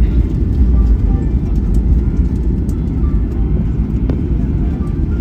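Steady low rumble inside the cabin of a Boeing 737-800 rolling on the ground after landing, engine and wheel noise with no distinct thumps.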